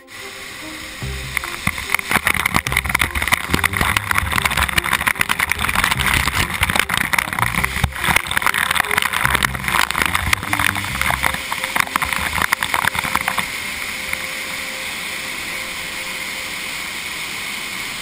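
Waterfall water pouring down onto the kayaker and the camera: a loud, crackling rush of falling water that eases to a steadier hiss about thirteen seconds in. Background music plays underneath.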